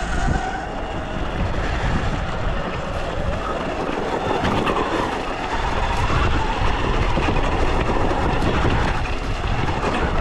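Sur-Ron electric dirt bike climbing a steep, rocky hill under load: the electric motor's whine rises and falls in pitch with the throttle, over a continuous rattle and rumble of the bike on loose rock.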